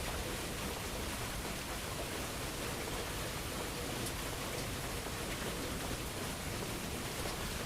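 Steady rain falling, an even hiss with no thunder clap.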